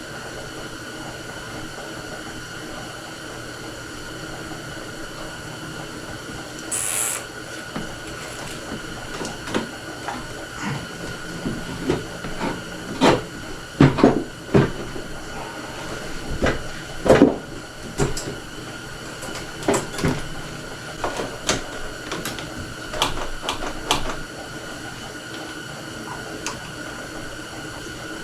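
Scattered knocks, clicks and clanks of tools and metal parts being handled while work goes on at the ATV's carburetor, over a steady hum. There is a short hiss about seven seconds in, and the sharpest knocks come in the middle.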